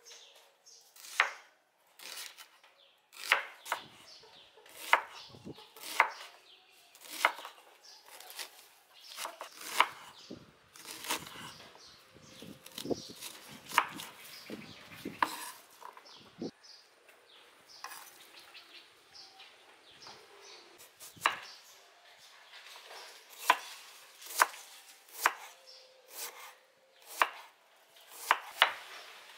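Chef's knife cutting onions on a wooden cutting board: a sharp knock of the blade on the board with each cut, at irregular intervals of about a second, with a quicker run of strokes near the end.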